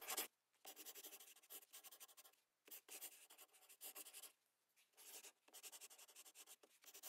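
Faint scratching of a stylus writing on a tablet: short strokes in quick clusters with brief pauses between them, as equations are handwritten.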